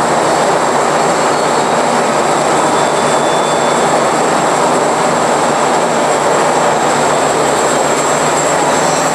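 Bandsaw blade cutting through a thick forged aluminum part, trimming off its flange: a loud, steady grinding rush from the blade and its motor, with a thin high whine held over it. The blade is taking the cut and making chips.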